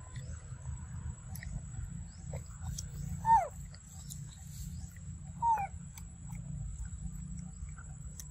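Macaque giving two short falling coo calls, about two seconds apart, over a steady low rumble.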